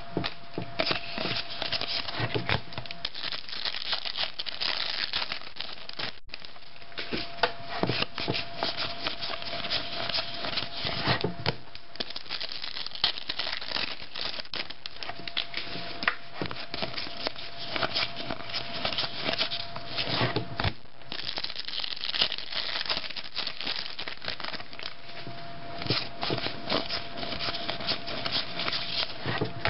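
Foil wrapper of a 1997 Score Board NFL Rookies football card pack crinkling and tearing as it is opened by hand, mixed with the cards rubbing and sliding against each other. Many small crackles go on with hardly a pause.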